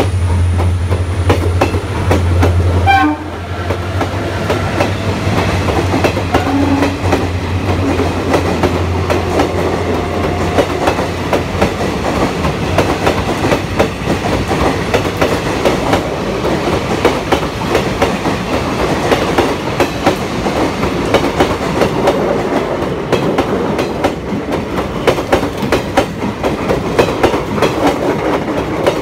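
ICF passenger coaches running past close by at speed, wheels clicking over the rail joints in a steady clickety-clack. A low drone under it drops off about three seconds in and fades out by the middle.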